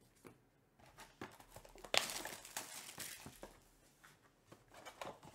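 Plastic wrapping crinkling and tearing as a trading-card hobby box is unwrapped and handled, starting with a sharp rip about two seconds in, then a lull and more crinkling near the end.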